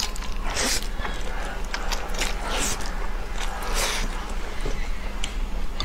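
Close-up eating sounds of wide flat noodles: a slurp as a mouthful is drawn in, then several more wet slurping and chewing noises in the first four seconds, with softer mouth clicks after. A steady low hum lies underneath.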